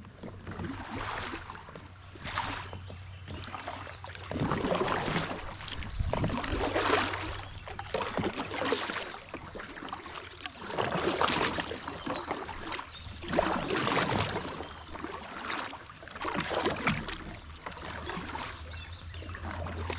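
Double-bladed kayak paddle stroking through the water, alternating sides, a splashy swoosh about every two seconds.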